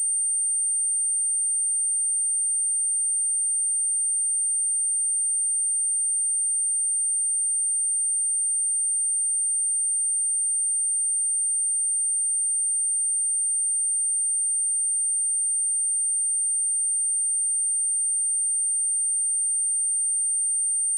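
A steady, unbroken high-pitched pure tone: an 8824 Hz sine-wave test tone, played to test a speaker or shake water and dust out of it.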